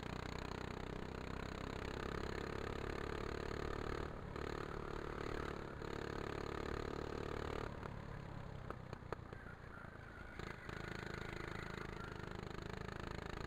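Go-kart engine running steadily under way, heard from on board the kart. Past the middle its sound drops away for a few seconds, with a few sharp clicks, then comes back up to speed.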